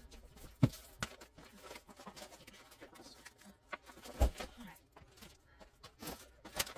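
Paper and plastic sleeves rustling and sliding as scrapbook paper is sorted by hand in a clear plastic storage tote, with a few short, sharp taps and knocks of paper against the tote, the loudest a little past four seconds in.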